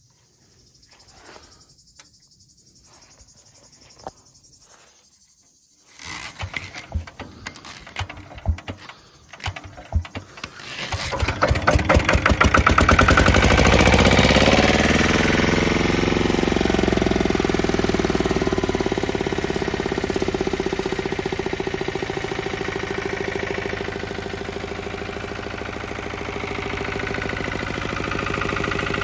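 Lombardini LDA 96 air-cooled diesel engine on a Goldoni Export two-wheel tractor being rope-started: after a few quiet seconds come several irregular knocks, then about eleven seconds in it catches, revs up and settles into a steady run.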